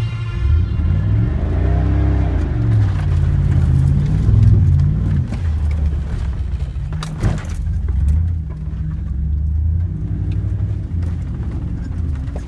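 Chevy Suburban engine revving up and down while driving off-road, heard from inside the cab. A single sharp knock comes about seven seconds in.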